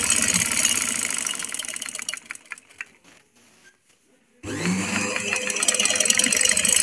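Domestic sewing machine stitching through a shalwar waistband over stretched elastic: it runs fast with a rapid ticking, slows and stops about three seconds in, then starts again a second and a half later, rising in pitch as it speeds up.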